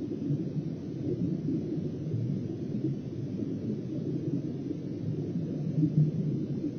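Steady low rumbling noise from an underwater camera's own soundtrack: water noise picked up by the submerged camera beneath the ice.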